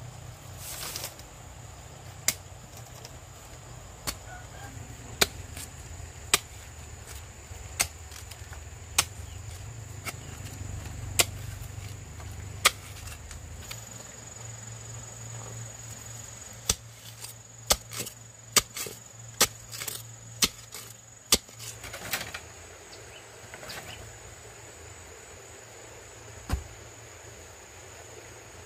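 Sharp single strikes of a hand tool on bamboo. At first they come about one every second or so, then a quicker run of about a dozen comes in the middle, with one last strike near the end. A steady, high-pitched insect drone runs behind them.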